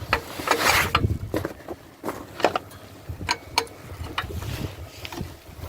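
Hand tools on the metal of a truck's auxiliary power unit: irregular sharp metal clicks and clanks, with a short rasping burst about half a second in.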